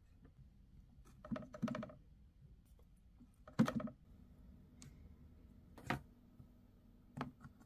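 Scattered light clicks and taps of cosmetic compacts and containers being handled and set down on a vanity counter, about five over several seconds, the loudest a little past three seconds in.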